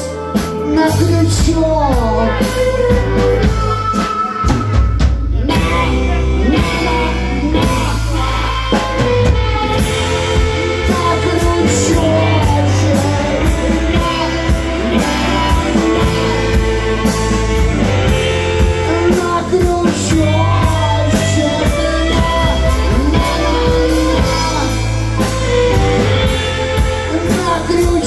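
Live rock band playing with singing: electric guitars, bass and drums keeping a steady beat.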